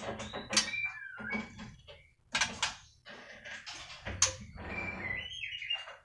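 White-rumped shamas calling: a quick run of harsh, raspy notes mixed with short clear whistles, a few of which slide in pitch.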